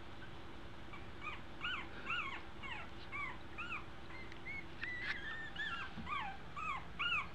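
Two-week-old American Eskimo puppies whimpering and squeaking: short, high, rising-and-falling cries in quick succession, several pups overlapping, starting about a second in.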